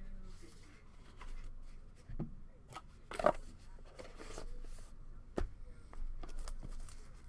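Tabletop handling of sealed trading-card boxes and packs: scattered knocks and taps, the sharpest about three and five seconds in, with light rustling between.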